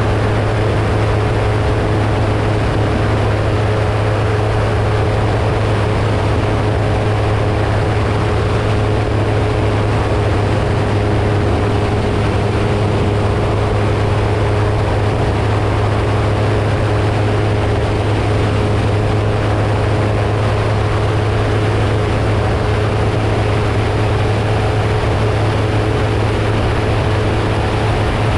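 Seamax amphibious light aircraft's Rotax 912 engine and pusher propeller running steadily: a constant low drone with a steady humming tone above it and no change in pitch or loudness.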